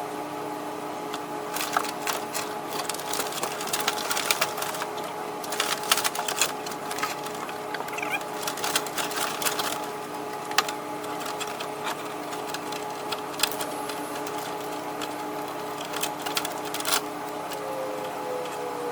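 Plastic trim clips, connectors and wiring clicking and rattling as they are handled and pulled off, in quick clusters through the first half, then sparser. A steady hum runs underneath.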